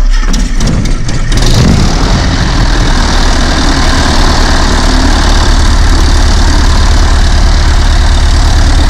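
Van's RV-9A's piston engine starting, with a second or so of uneven firing before it catches and settles into a steady idle with its propeller turning.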